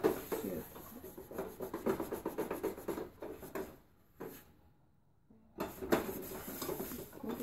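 Cookware and utensils being handled in a kitchen: light clatter and rubbing, with a brief drop to near silence about four seconds in.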